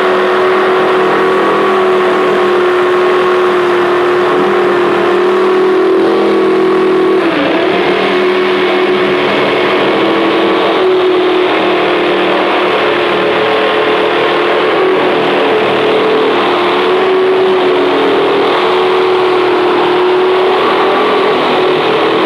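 Electric jigsaw running steadily as its blade saws through the top of a plastic drum to cut the lid off. The motor's pitch sags briefly about seven seconds in and again around eleven seconds as the blade meets resistance.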